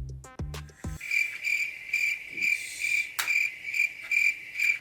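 Cricket chirping: a high, even chirp repeated about twice a second, coming in about a second in after a few short low tones and cutting off abruptly.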